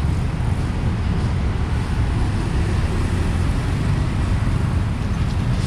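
Steady street traffic noise from passing motorbikes and cars, with a heavy low rumble.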